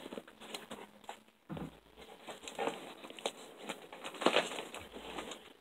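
Packing tape on a cardboard shipping box being picked at by fingers and then worked with scissors: irregular scratches, scrapes and crinkles, with a few louder scrapes through the middle.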